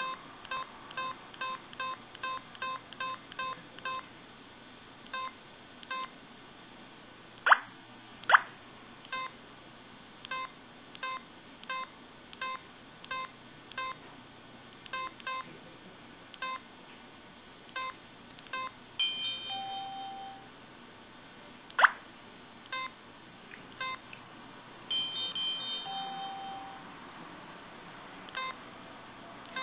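IM-6100 mobile phone playing its key and effect sounds: a run of short electronic beeps, about two or three a second with pauses, broken by a few louder sharp effect sounds and two short chiming jingles.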